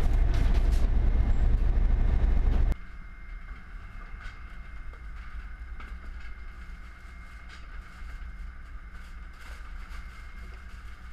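Fishing boat's engine droning steadily through the galley, loud at first and then suddenly much quieter about three seconds in, with a few light clicks over the hum.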